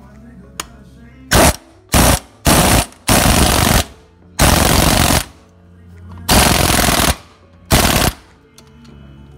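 Impact wrench hammering in seven short bursts, each lasting from under half a second to nearly a second.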